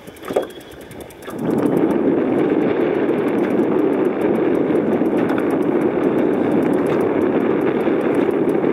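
A motor starts up about a second in and then runs steadily and loudly.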